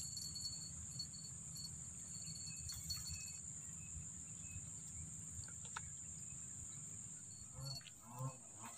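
Steady, faint, high-pitched insect chirring, like crickets in the grass, with a few faint clicks. A couple of short, low, soft sounds come near the end.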